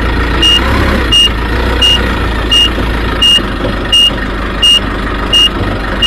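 Forklift reversing alarm beeping in short, even high beeps about every 0.7 seconds, over the steady low rumble of the machine running.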